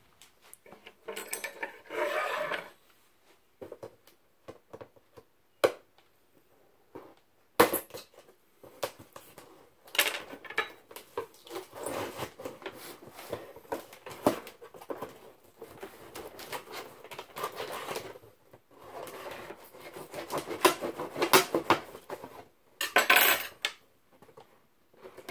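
A cardboard shipping box being handled and cut open with a knife: scattered clicks, knocks and scraping, with a loud tearing rasp near the end.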